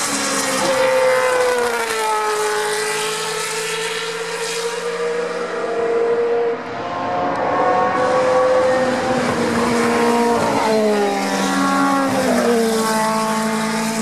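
Historic 1970s Formula One cars with Cosworth DFV V8 engines racing past at high revs, several engines overlapping. Their pitch slides down and climbs again a few times as they pass and shift gear.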